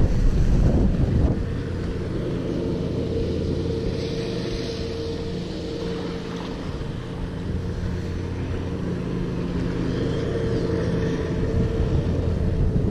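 Wind buffeting the microphone, a rumbling rush strongest in the first second or so, with a steady low hum running underneath that swells twice.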